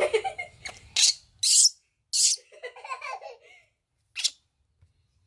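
Baby macaque vocalising as it reaches for the milk bottle: a rising squeal at the start, then short breathy cries and a stretch of chattering whimpers.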